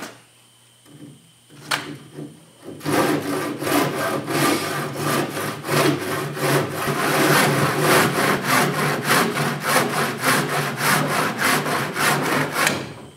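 Hand saw cutting across a wooden board. A few light starting strokes come first, then steady back-and-forth strokes at about three or four a second, which stop near the end.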